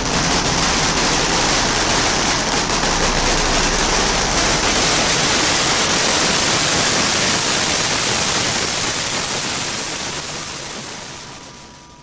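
Firecrackers going off on the street in a rapid, dense crackle that runs together into a loud, steady hiss, fading away over the last few seconds.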